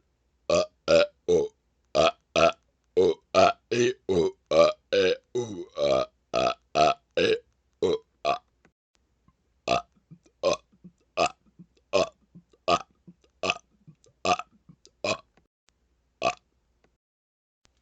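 A man's rapid-fire burping: a long string of short, separate burps, about two to three a second, slowing after about eight seconds to roughly one every three-quarters of a second.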